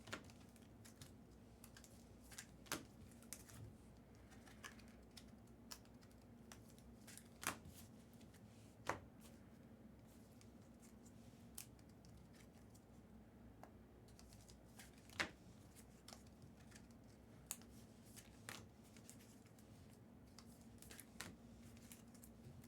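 Near silence with a faint steady hum, broken by about a dozen sporadic light clicks and rustles of trading cards and foil packs being handled.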